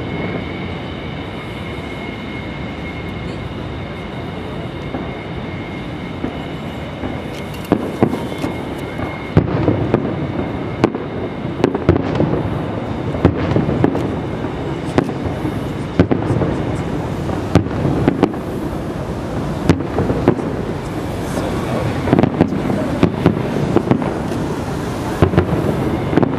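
Aerial firework shells bursting in a display. It begins fairly quiet, then from about eight seconds in comes a string of sharp bangs at irregular intervals, over a steady background murmur.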